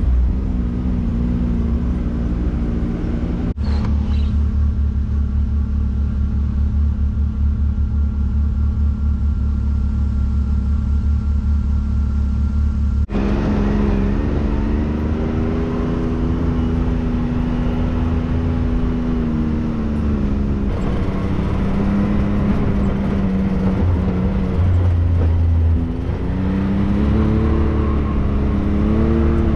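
Can-Am side-by-side's engine running under way, its pitch rising and falling with the throttle. The sound changes abruptly twice, at about 3.5 s and 13 s.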